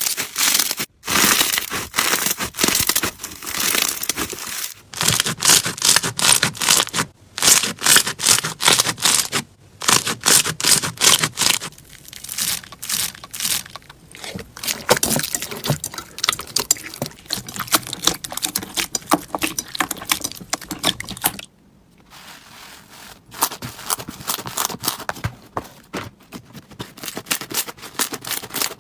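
Slime being squeezed and kneaded by hand, giving dense runs of crackling, popping clicks broken by short pauses. A little past the middle it stops briefly, and the clicking that follows is softer.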